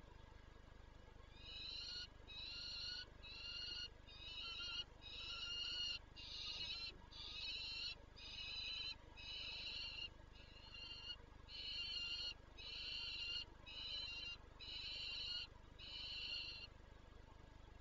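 Male peregrine falcon calling loudly as he arrives at the nest ledge: a run of harsh, rasping calls, each well under a second long, repeated about once a second, starting about a second in.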